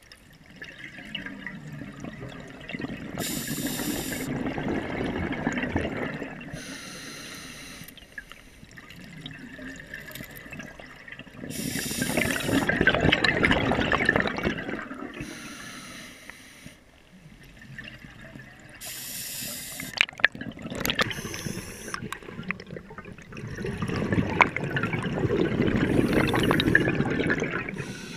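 Scuba diver breathing through an open-circuit regulator underwater: a short hiss of each inhale through the demand valve, then a long burbling rush of exhaled bubbles, in slow cycles several seconds apart. A few sharp clicks sound about two thirds of the way through.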